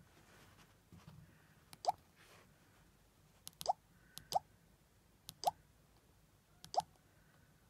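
A Nokia 105 (2019) ringtone played through the phone's speaker: five short sliding blips at uneven spacing, each with a faint click, like drops of water.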